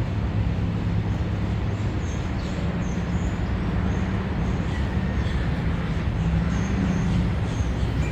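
Steady low rumble of an engine running, with faint short high chirps now and then over it.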